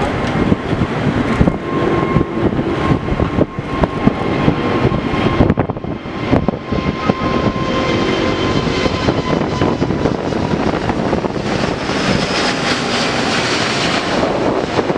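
Twin-engine widebody jet airliner climbing out at takeoff thrust: a loud, steady engine rush with a faint whine, growing brighter and louder near the end as the jet passes close overhead. Wind buffets the microphone throughout.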